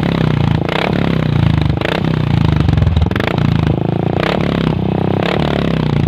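Modified Royal Enfield Thunderbird's single-cylinder engine running, heard close at the exhaust silencer as a loud, steady low pulse, with several sharp cracks about once a second.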